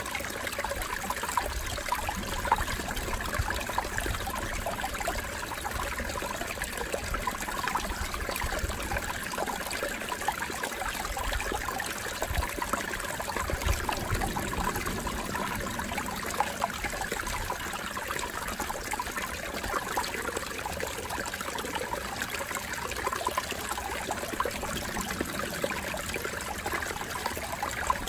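Ocean surf washing steadily against a rocky shore, with wind buffeting the microphone as a low, uneven rumble underneath.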